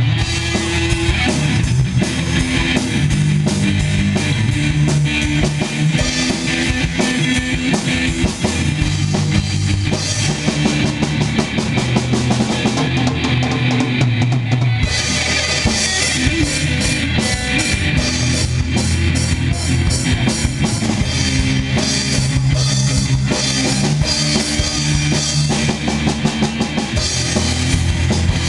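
Drum kit played with a band in a rock style: a steady beat on bass drum and cymbals over guitar and sustained low bass notes. The high cymbal wash drops out for a couple of seconds past the middle, then comes back.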